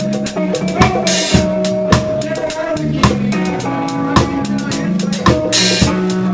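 Live reggae band playing, with the drum kit loud and close: a steady beat with a hard drum hit about once a second over held bass and keyboard notes. A cymbal rings out about a second in and again near the end.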